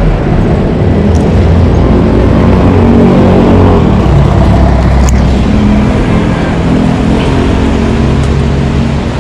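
Motor scooter engine running steadily at a standstill, mixed with passing street traffic.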